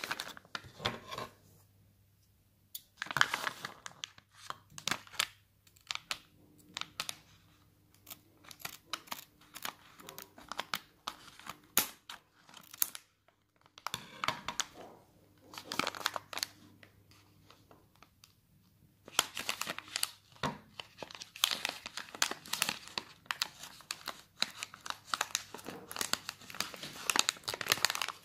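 Foil-lined plastic snack pouch being crinkled and torn open by hand: irregular rustling and tearing with short pauses, growing busier and more continuous in the last third as the pouch is peeled apart.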